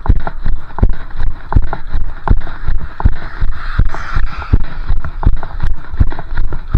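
Running footsteps on a wet, gritty asphalt road shoulder, an even beat of a little under three strides a second, heard through a chest-mounted camera. About halfway through, a car passes close by with the hiss of tyres on wet pavement.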